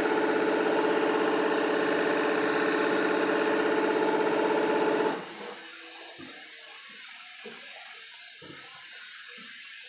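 Servo-motor knitwear linking machine running at its top speed of 1000 rpm: a steady, even machine hum that cuts off about five seconds in, after which only faint small knocks remain.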